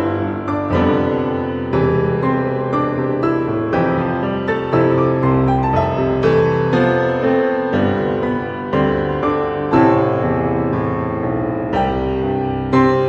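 Background music played on piano, a melody of separate notes struck one after another.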